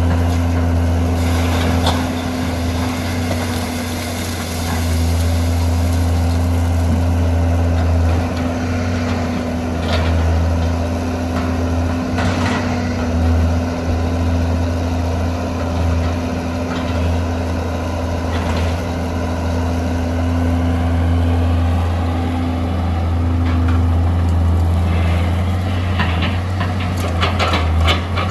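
Hitachi EX200 hydraulic excavator's diesel engine running steadily under working load, with scattered knocks and clatter from the bucket working rock and sand, more of them near the end.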